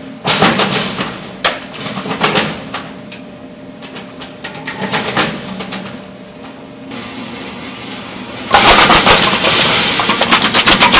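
Student-built styrofoam shredder running: a spinning toothed wheel tearing polystyrene chunks against a shredder rake, with irregular crackling of the foam being broken up. The crackling becomes much louder and denser about eight and a half seconds in.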